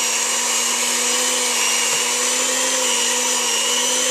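Electric mixer running at a steady speed, its motor giving an even, loud whine as it creams butter and sugar in the bowl.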